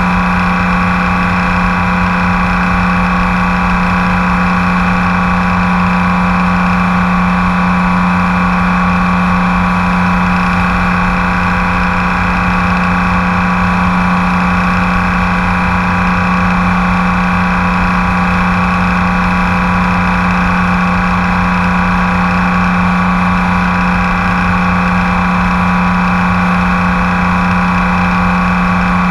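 BMW K1600 GTL's inline-six engine running at a steady highway cruise, its pitch holding constant, over a rough low rumble of wind and road noise.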